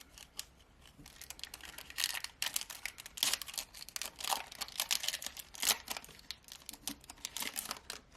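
Foil wrapper of a Topps trading card pack crinkling and tearing as it is opened, a dense run of irregular crackles and clicks.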